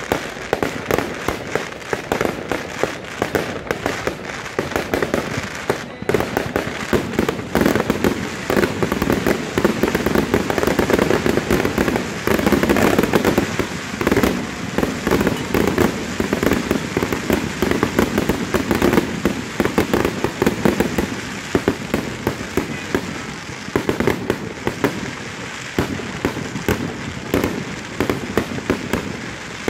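Aerial fireworks bursting one after another, a dense, unbroken run of sharp bangs and crackling.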